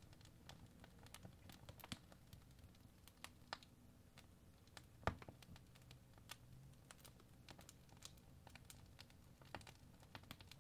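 Faint, irregular clicks and light scratches of a first-generation Apple Pencil's plastic tip tapping and stroking the glass screen of an iPad Pro, with one louder tap about five seconds in.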